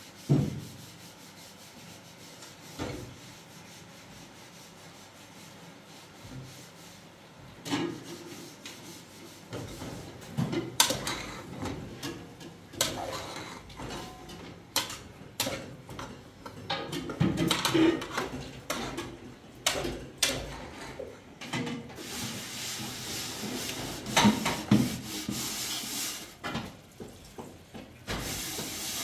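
Kitchen cooking noises: a spoon stirring and scraping in a steel pot of tomatoes, with irregular knocks and clatter of pots and utensils, busier in the second half.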